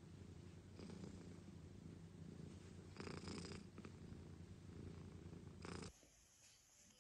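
Domestic cat purring, a steady low rumble that swells every two to three seconds and stops suddenly about six seconds in.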